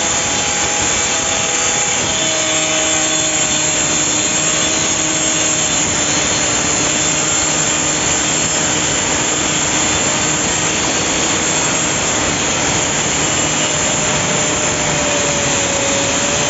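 Compact electric circular saw cutting across a wooden board: a loud, steady run of motor and blade noise with a whine that drops in pitch about two seconds in as the blade works through the wood, cutting off abruptly at the end.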